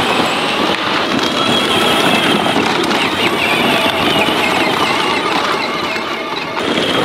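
Electric kids' ride-on tractor driving along with its motor and gears whining at a wavering high pitch, plastic wheels crunching over gravel and a towed wooden trailer rattling behind.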